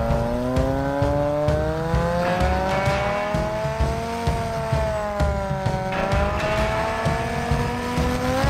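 Just Aircraft SuperSTOL's engine and propeller running on the ground, its pitch rising slowly, dipping around the middle and climbing again near the end as the throttle is worked, over a choppy low rumble.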